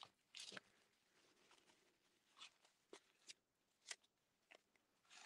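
Faint, scattered rustles and crinkles of a paper towel wiping a plastic stencil and being scrunched up, a handful of soft ticks spread over a few seconds.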